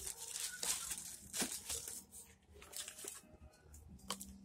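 Clear plastic bag crinkling and rustling around a boxed modem as it is handled and put down, loudest in the first second and a half, with a sharp click near the end.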